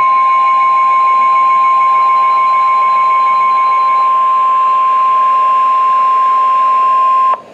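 NOAA Weather Radio warning alarm tone: one loud, steady, high beep held unbroken for about seven seconds, then cut off suddenly near the end, with fainter tones beneath it for the first half. It signals that a warning message follows.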